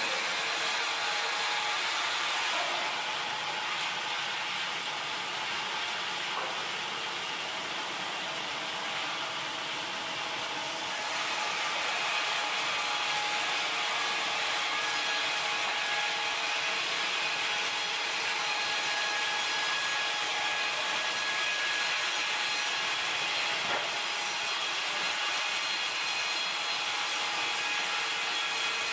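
Automatic horizontal band sawmill (MKS1200) running, its band blade sawing lengthwise through logs with a steady loud hiss and rasp. The high hiss of the cut fades and the sound drops a little from about three seconds in, then comes back strongly about eight seconds later.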